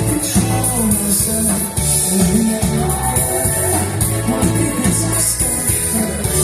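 Live rock band playing loudly through a concert sound system, with bass, drums, cymbals and guitar.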